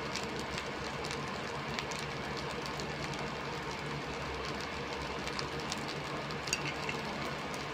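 Fried rice sizzling steadily in a stainless steel pan on an induction cooker, over a low steady hum, with a few faint ticks and crackles.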